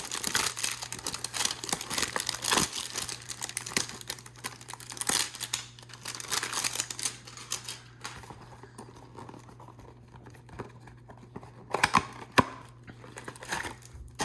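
Packaging of a Panini Prizm basketball hanger box being torn open and crinkled. The handling is busy for the first several seconds, then quieter, with a few sharp rips near the end.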